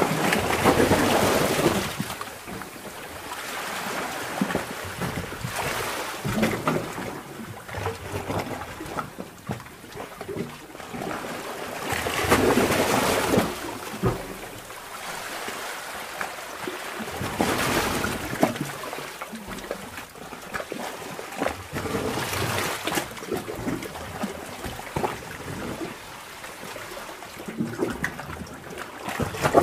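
Sea water surging and sloshing in a sea cave, swelling every few seconds and easing to a lower wash in between; the strongest surges come at the start and in the middle.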